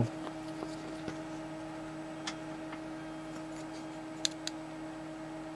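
Steady electrical hum with a few faint ticks from small steel tools and a sharpening stone being handled: one about two seconds in, then two close together about four seconds in.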